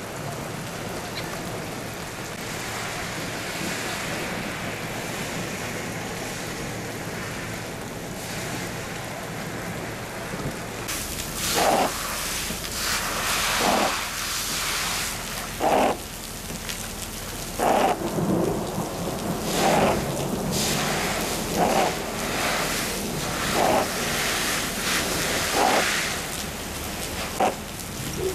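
Steady downpour of rain and hail on pavement. About eleven seconds in, a push broom starts scraping hailstones across wet pavement in repeated strokes, roughly one every two seconds, over the continuing rain.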